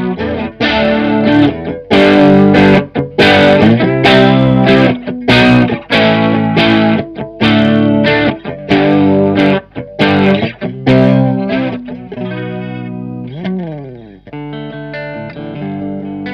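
Electric guitar riff through a Stoy Sound Choir Boy analog bucket-brigade chorus pedal and a Boss Blues Driver overdrive: rhythmic overdriven chords with a shimmering chorus, while the chorus intensity is adjusted. Near the end the strumming stops and a chord rings out, its pitch bending and wavering.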